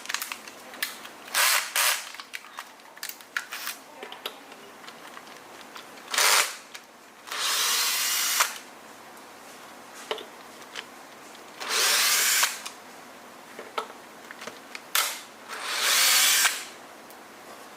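Power drill-driver backing screws out of an electric scooter's metal deck plate. It runs in repeated bursts about a second long, with light clicks and taps from handling in between.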